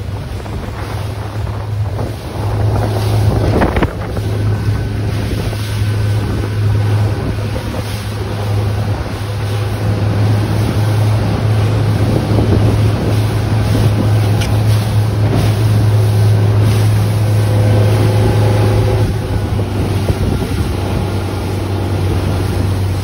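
Rigid inflatable boat's engine running at speed with a steady low drone, with wind buffeting the microphone and the rush of churned water from the wake.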